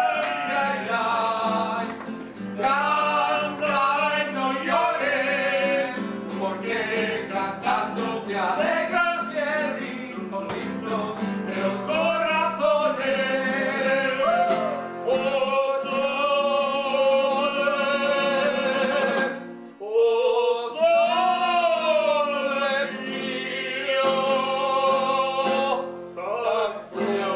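Two men singing together to a strummed nylon-string classical guitar.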